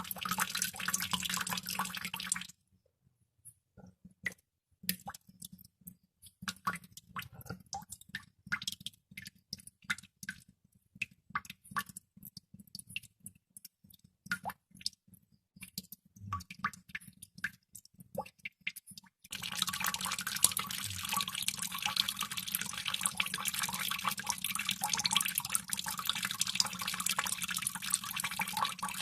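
Water droplets falling: a dense patter for about two seconds, then after a short pause single drops landing at irregular intervals, a few a second, before a dense continuous patter of water takes over about two-thirds of the way through.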